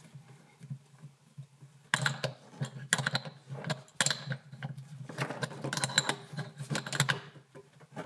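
Braided stainless-steel supply hose and brass shutoff-valve fitting clicking and rattling as the hose is handled and its nut is fitted to the valve. A run of small, sharp metallic clicks starts about two seconds in and dies away near the end.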